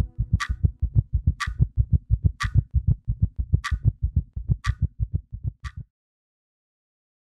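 Electronic logo music of fast, even low thumps, about five a second, with a sharp tick about once a second; it cuts off suddenly about six seconds in.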